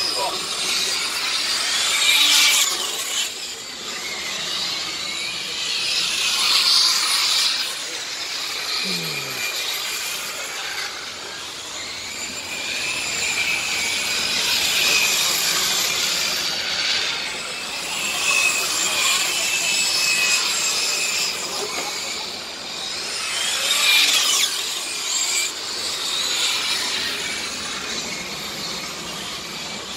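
Radio-controlled model race cars lapping a track. Their motors make a high-pitched whine that swells and fades as each car passes, several times over, with the pitch sliding as they go by.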